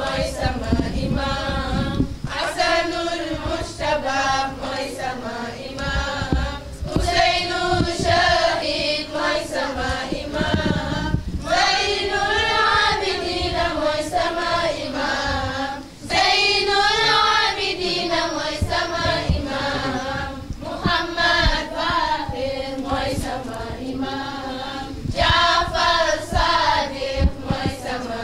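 A group of voices chanting a latmiya, a Shia mourning chant for Imam Hussein, sung together in repeated melodic phrases.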